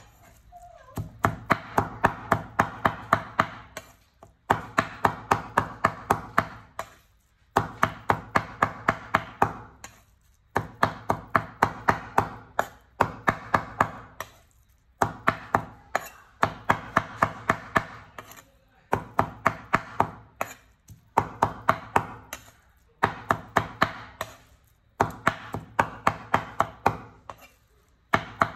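Cleaver chopping raw beef into mince on a wooden cutting board: fast runs of sharp knocks, about four a second, broken by brief pauses every two to three seconds.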